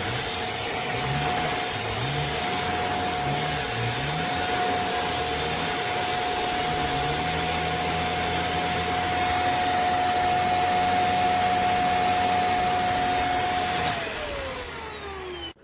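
Handheld mattress vacuum cleaner running steadily with a high motor whine, then switched off near the end, the whine falling in pitch as the motor winds down.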